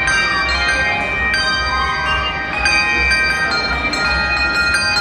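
Handbell choir playing a tune on brass handbells. Notes and chords are struck about every half second and ring on, overlapping one another.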